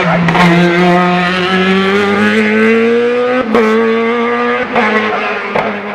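Race car engine accelerating hard, its pitch climbing steadily, with a short break and drop at a gear change about three and a half seconds in and again near the end.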